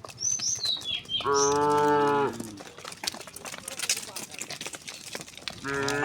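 Cattle mooing: one long, even-pitched moo about a second in, and another starting near the end. Just before the first moo, a bird chirps a few short, high, falling notes.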